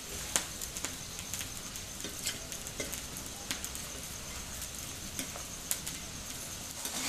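Potato French fries sizzling in hot oil in a steel kadai during their second, crisping fry, as a metal spatula stirs them. Many short, sharp crackles are scattered through the steady hiss.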